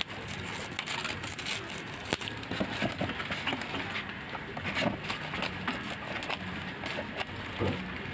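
Bubble wrap and plastic packaging crinkling and crackling as it is handled, in irregular sharp clicks over a steady low background hum.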